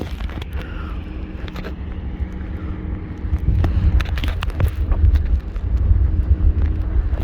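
Wind buffeting the microphone while parasailing high over the sea: a loud, gusty rumble with scattered clicks and a faint steady hum underneath.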